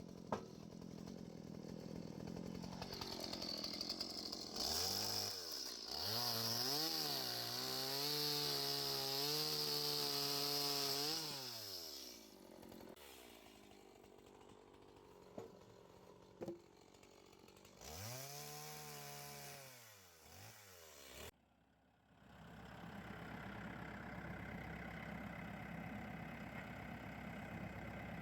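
Portable band sawmill running. Its engine revs up and holds under load while the band blade hisses through the wood, then falls back, and a second shorter rev follows. About three-quarters of the way through the sound cuts off abruptly, and a steadier, lower engine hum follows.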